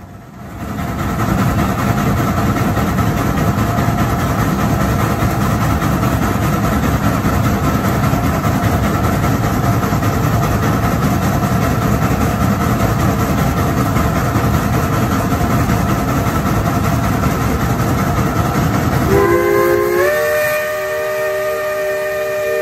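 A loud, steady rushing noise from the moving steam train, then about 19 seconds in a steam locomotive's chime whistle sounds a long chord of several notes that steps up in pitch about a second after it starts.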